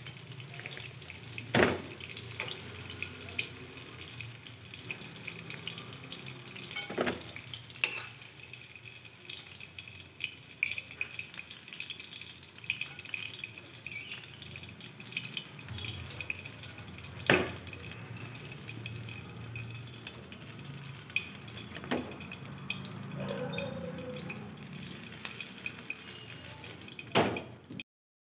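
Chicken lollipops deep-frying in hot oil in a metal wok: a steady sizzle, with a metal spoon clinking sharply against the pan a few times as the pieces are lifted out. The sound cuts off just before the end.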